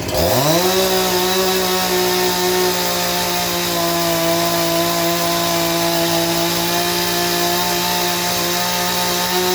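Husqvarna 353 two-stroke chainsaw engine revved up sharply under full throttle and then held at a high, steady speed. It is being run to burn off the fuel left in the tank.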